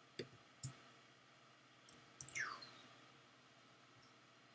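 Computer mouse clicking, two sharp clicks within the first second and a fainter one near two seconds, with a short falling squeak a little over two seconds in.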